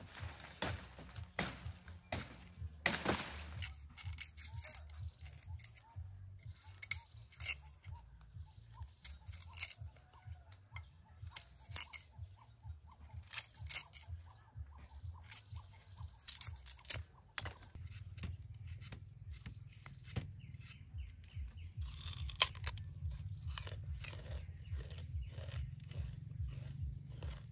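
A machete blade shaving the hard rind off a short piece of sugarcane in irregular scrapes and cracks, strips of rind tearing away. In the last part, a person biting and chewing the peeled sugarcane.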